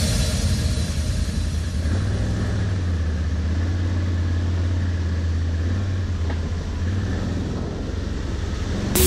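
Can-Am ATV engine running steadily under light throttle while riding, a continuous low drone heard from the rider's seat.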